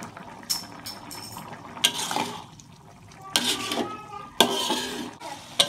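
Metal spatula stirring a wet vegetable-and-chicken filling in a metal wok. The blade scrapes sharply against the pan about five times, with the liquid sloshing between strokes, as the filling is cooked down until its liquid evaporates.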